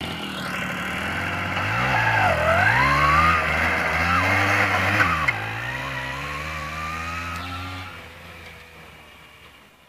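Tomos APN 4 moped's small two-stroke engine, revved up and down twice as it pulls away, then running steadily and fading as the moped rides off from about eight seconds in.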